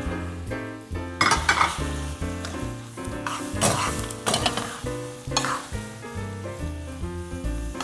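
Wooden spatula stirring fried glutinous rice balls and broccoli through sizzling meat sauce in a frying pan, with scraping strokes about a second in, near four seconds and again around five and a half seconds. Background music plays underneath.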